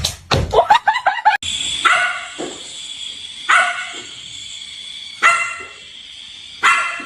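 A pet animal's short pitched cries: a quick run of yips in the first second and a half, then four separate calls spaced about a second and a half apart.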